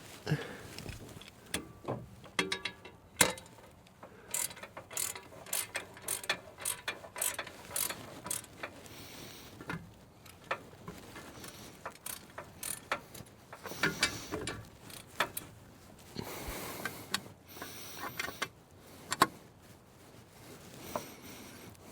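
Hand ratchet wrench clicking in short runs, mixed with scattered sharp metal clinks and knocks of tools and parts.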